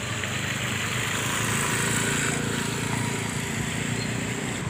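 A motor vehicle's engine running as it passes, with a rush of noise that swells to a peak about two seconds in and then eases.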